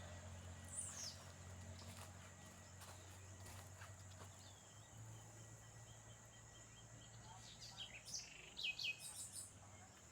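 Quiet outdoor ambience with birds chirping: a brief falling whistle about a second in, a faint run of even notes, and a cluster of sharp chirps near the end. A low distant hum underlies it and fades out near the end.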